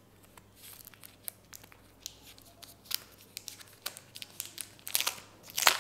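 Plastic cover around a new smartphone being torn and peeled open: scattered crinkles and small rips that come thicker from about two seconds in, with the loudest tearing near the end.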